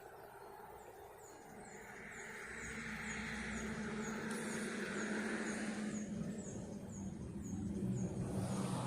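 An engine drone that grows steadily louder over several seconds, with a high chirping repeating about twice a second above it.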